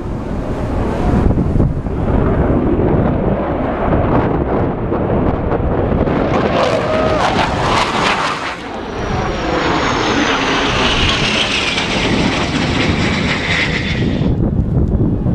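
Jet aircraft flying overhead. The engine noise builds about halfway through, then a high whine falls in pitch as the jet goes by. The sound cuts off suddenly near the end.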